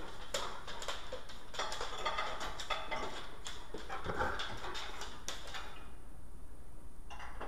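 A Rottweiler whining, over a steady low hum, with scattered short clicks and knocks.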